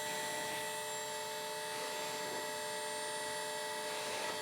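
Hydraulic pump and its small electric motor in a 1/14 LESU RC excavator running with a steady whine of several tones, holding around 3 MPa of system pressure.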